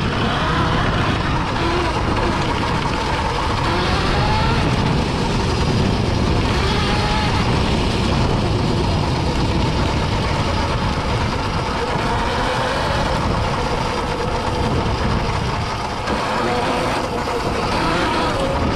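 Electric dirt bike riding a bumpy dirt trail: steady wind and tyre rumble on the microphone, with a faint wavering whine from the electric motor.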